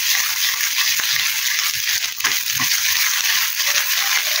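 Cut sausage pieces sizzling in oil in a small nonstick frying pan over a gas flame, a steady hiss. The pan is shaken now and then, shifting the pieces with faint ticks.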